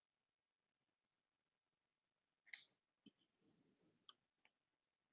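Near silence, broken by a few short, faint clicks: one about halfway through and a small cluster a second or so later, with a brief soft hiss between them.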